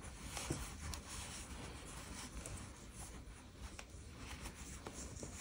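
Faint rustling and rubbing of giant chunky yarn as hands pull it through a stitch, with a few faint light clicks.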